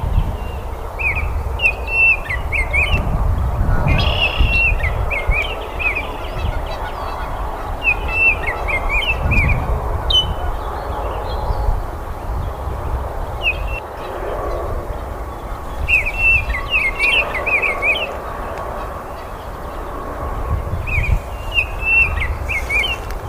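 Baltimore oriole singing: short phrases of quick, whistled notes that bend up and down, repeated every few seconds with pauses between, over a steady low background rumble.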